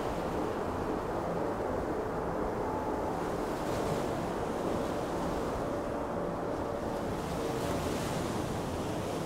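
Steady wind and open-sea wash with a low rumble and a faint hum underneath, a ship-at-sea ambience. The hiss swells twice, about four and eight seconds in.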